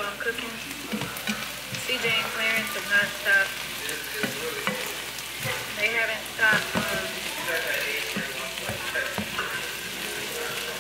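Diced bell peppers sizzling in a nonstick frying pan while they are stirred with a slotted spatula, with irregular clicks and scrapes of the spatula against the pan.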